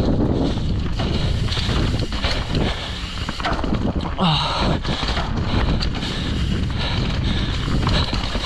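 Wind buffeting the microphone over the rumble and clatter of a mountain bike ridden fast down a rough trail, with a short pitched squeal that bends in pitch about four seconds in.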